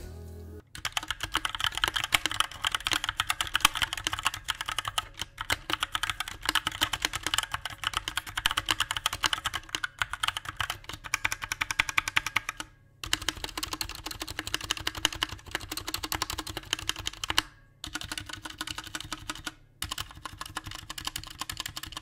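Typing on a Velocifire M2 60% mechanical keyboard with Outemu brown switches and ABS keycaps: a fast, continuous run of keystroke clacks, broken by a few short pauses.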